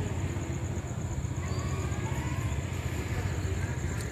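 Steady low outdoor rumble with a constant thin high-pitched whine above it.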